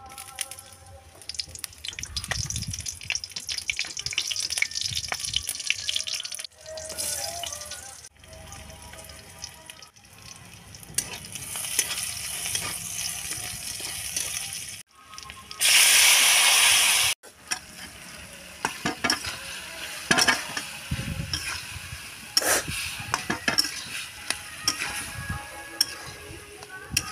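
Vegetables frying in hot oil in a kadai: a steady sizzle with a metal spatula clicking and scraping as it stirs, stopping and restarting abruptly several times. About sixteen seconds in, a much louder burst of hissing lasts about a second and a half.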